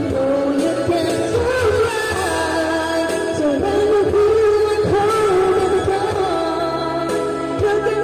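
Karaoke: a woman singing a held, wavering melody into a handheld microphone over a backing track.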